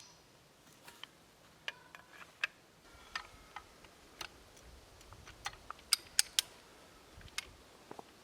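Irregular light clicks and metallic clinks of well pipe fittings being handled, about fifteen in all. A few ring briefly, and the loudest come in a quick cluster about six seconds in.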